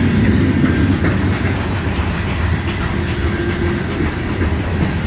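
Freight cars of a mixed train (covered hoppers, boxcars and tank cars) rolling past on the rails: a steady rumble with the wheels clacking over rail joints.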